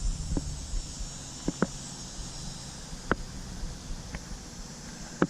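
Outdoor ambience: a steady high-pitched hiss over a low rumble, broken by about half a dozen short, sharp clicks.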